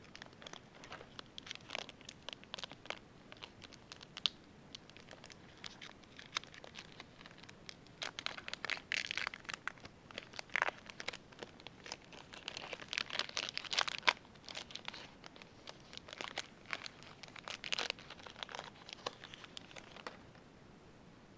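Crinkling and tearing of a plastic trading-card pack wrapper being opened and handled: a long run of irregular crackly rustles and sharp clicks that stops about a second before the end.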